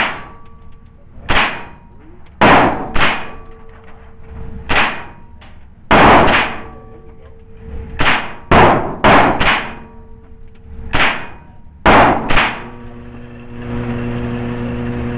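AR-style semi-automatic carbine fired at an indoor range: about fourteen sharp shots at uneven spacing, some in quick pairs, each echoing off the range walls. Near the end a steady hum sets in.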